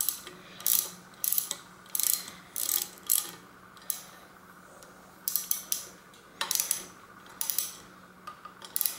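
Socket ratchet clicking in short bursts as it is swung back and forth to tighten the nut that holds a bicycle's front caliper brake to the fork, with a pause of about a second halfway through.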